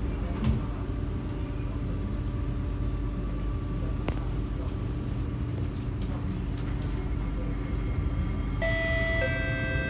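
Kawasaki & Nippon Sharyo C751B metro train heard from inside the carriage: a steady low rumble and hum with the doors shut, a single click about four seconds in, then near the end the traction motors start up with a whine of several steady tones that step in pitch as the train pulls away.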